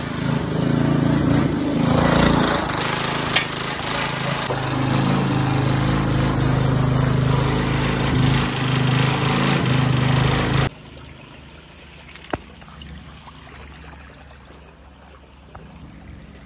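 A small engine-driven water pump running steadily at a constant pitch while it pumps water out of a swimming pool. The sound cuts off abruptly about ten seconds in. A much quieter stretch follows, with a faint trickle of water and one sharp click.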